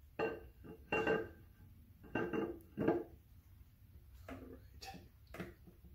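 An MGB flywheel clanking and ringing against the crankshaft flange and studs as it is worked into place by hand. There are four loud metallic clinks in the first three seconds, then a few fainter taps.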